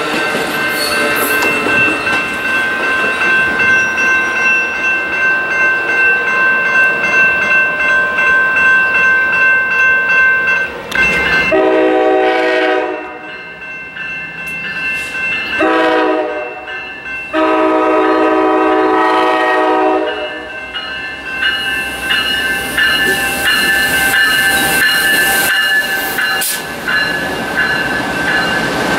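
A train's steady running noise with thin high steady tones, then an approaching Amtrak GE P42DC diesel locomotive sounds three blasts of its chord horn, the last the longest. The train then passes close by with a dense rush of wheel and engine noise.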